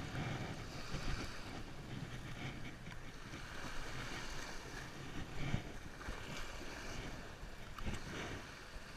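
Wind buffeting the microphone over small waves washing onto a sandy shore, with a couple of short knocks partway through.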